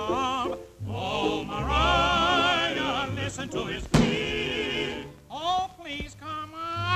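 Cartoon cats' serenade: voices singing in a warbling, yodel-like style with heavy vibrato, sliding up into notes near the end. A sharp click cuts across about four seconds in.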